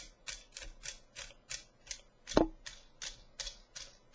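Steel e-cigarette battery tube being screwed on by hand: a short rasp of metal threads with each twist, about three a second, and one louder metallic clink with a brief ring about halfway through.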